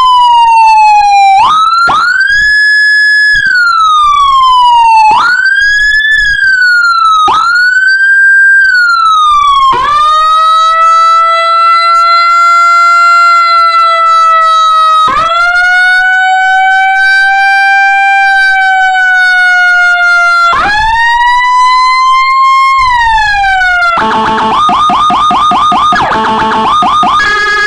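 Electronic police-escort siren module with Whelen HHS3200-style tones, sounding through a 100-watt horn speaker. It cycles through its tones: quick rising and falling sweeps about every two seconds, then long slow wails, and near the end a rapid warbling pattern.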